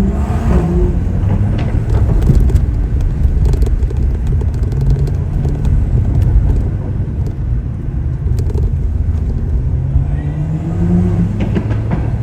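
Tuned BMW car engine running while driving, the revs rising about half a second in and again near the end, holding steady in between, with a few short sharp cracks in the middle stretch.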